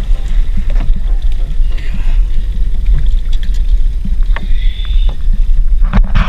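Small outrigger fishing boat's engine idling with a steady low rumble. Water splashes about six seconds in as a hooked trevally is lifted out beside the hull.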